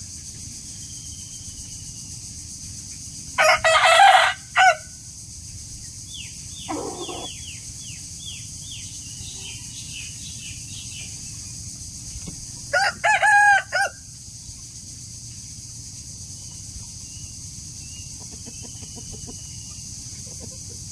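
Rooster crowing twice, about nine seconds apart; each crow lasts just over a second and breaks into several short segments.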